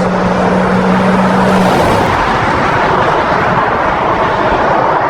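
Steady city traffic noise from cars driving, with a low engine hum that stops a little under two seconds in.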